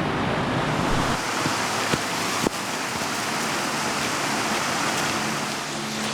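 Small waterfall or cascade of a creek, water rushing steadily, with a low wind rumble on the microphone that drops away about a second in and a sharp click midway.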